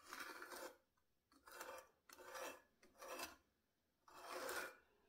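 Pencil scratching along the edge of a spirit level onto a bare wooden block, marking a line: about five faint strokes, each roughly half a second long, with short pauses between.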